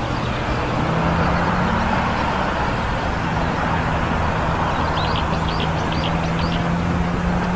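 Steady rushing noise with a low, even engine hum coming in about a second in, like a motor vehicle running. There are a few short high chirps about five to six seconds in.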